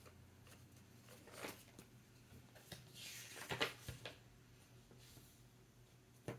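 Faint rustling and a few small clicks of things being handled, loudest for about a second around three to four seconds in.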